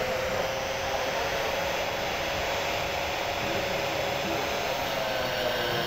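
Concrete-cutting saw built on a Metabo angle grinder running at full speed inside its dust shroud, together with the shop vacuum that switches on with it for dust extraction. The motor's steady whine sags slightly in pitch near the end.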